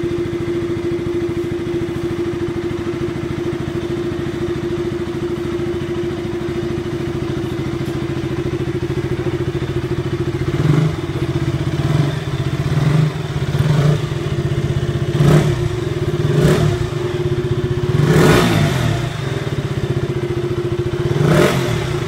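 KTM RC 200's single-cylinder four-stroke engine idling steadily through its exhaust, then revved in a series of short throttle blips over the second half, the longest one near the end.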